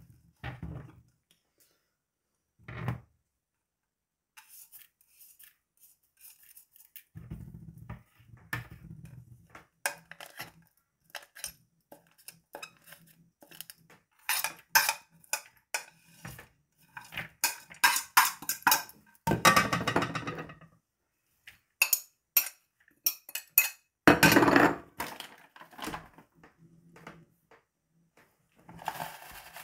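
A metal fork scraping and clinking against a plate and a wooden bowl as chopped seasonings are pushed off the plate. The clicks and scrapes come irregularly, with a few louder knocks, and there is a rustle near the end.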